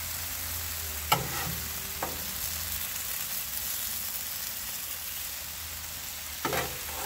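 Chicken thighs sizzling steadily on a Blackstone gas griddle's steel plate, with a metal spatula clanking and scraping against the griddle as the chicken is lifted and checked: a sharp clank about a second in, a lighter knock a second later, and a short scrape near the end.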